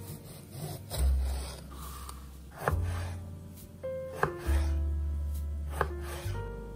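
Background music with long, deep bass notes, over a chef's knife slicing through tomatoes and tapping sharply against a plastic cutting board a few times.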